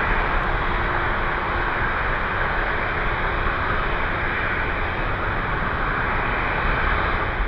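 Twin-engine widebody jet airliner's engines at takeoff thrust, a steady loud jet roar with a deep rumble as the aircraft lifts off and climbs away.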